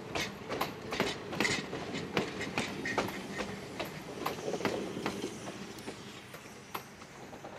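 Passenger coaches rolling past, their wheels clicking over the rail joints about two or three times a second over a steady rumble. The clicks fade away after about five seconds as the last coach moves off.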